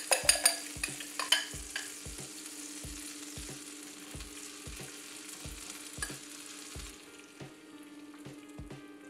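Beaten eggs sizzling as they are poured into melted butter in a nonstick frying pan. A few sharp clinks of a fork against the glass bowl come in the first two seconds. The sizzle thins out near the end, over a steady low hum.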